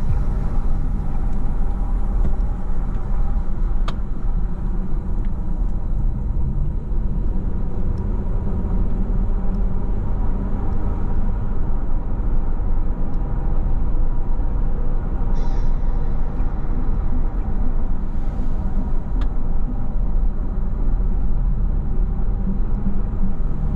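Car driving at a steady speed, heard from inside the cabin: a continuous low rumble of engine and tyres on the road.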